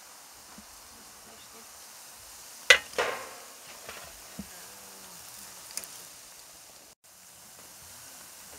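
Ciuriși (Romanian fried dough) frying in hot oil in a pan, a steady sizzle. About three seconds in, a fork clinks twice against the pan with a short ringing.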